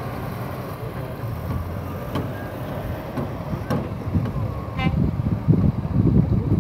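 Heavy trucks driving past, their diesel engines making a low rumble. The rumble grows louder in the second half as a tractor-trailer approaches, and a horn toots faintly in the distance.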